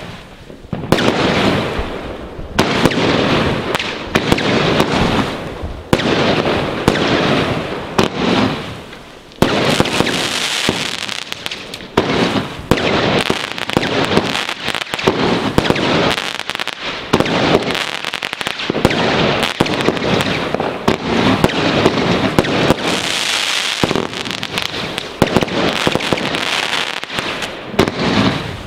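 Two Weco Goldfinger 21-shot, 30 mm firework cakes firing together: a near-continuous run of launches and bursts, with the gold crackling stars crackling between the shots. The firing stops just before the end.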